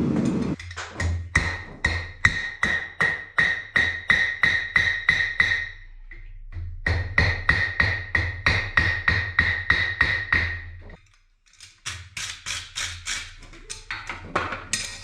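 Hammer blows on a steel anvil, struck steadily about two to three times a second with a ringing tone through them. They come in three runs with short pauses between, over a steady low roar.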